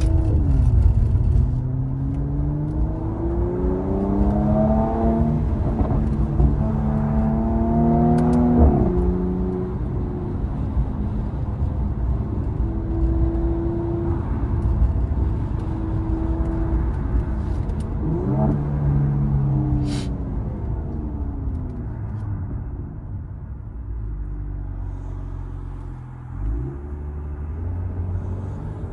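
Mercedes-AMG C43's engine pulling hard under acceleration, its pitch climbing and then dropping at each upshift several times in the first ten seconds. It then holds a steady pitch at cruise, with another brief rise and fall a little before a short sharp click about twenty seconds in.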